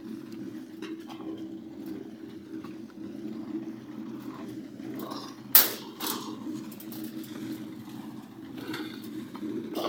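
Steady low machine hum, like an engine running, from concrete work on a building site, with a sharp knock a little past halfway and a smaller one just after.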